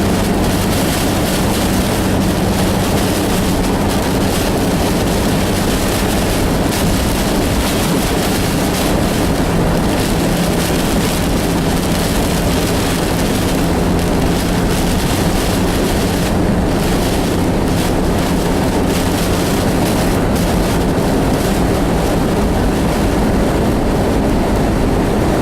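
Steady road and engine noise of a vehicle travelling at expressway speed, with a low hum under it.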